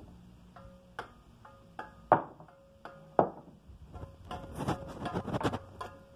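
Steel mason's trowel striking and chipping a clay brick to trim it, each hit followed by a ringing of the blade. Two hard hits stand out a second apart, then a quicker run of taps and scrapes near the end.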